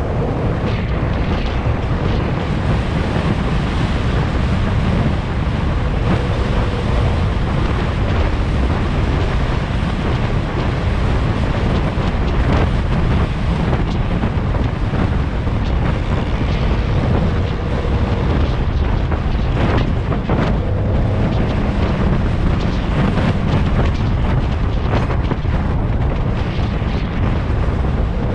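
Wind buffeting the microphone of an action camera mounted on the outside of a Toyota FJ Cruiser as it drives along a dirt track, over a steady low rumble of the moving vehicle.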